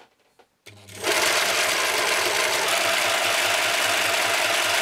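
3D-printed scroll saw starting up just under a second in, then running steadily, its blade mechanism giving a loud mechanical chatter with a fast, even pulse.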